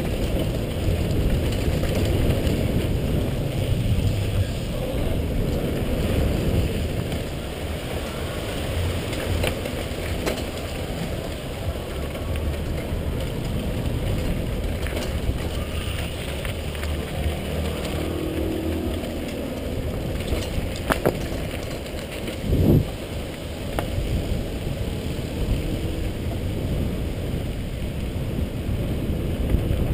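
Downhill mountain bike descent heard from a helmet camera: wind buffeting the microphone over the tyres rolling and the bike rattling across a rocky dirt trail, with scattered clicks and knocks. Two louder knocks come about two-thirds of the way through.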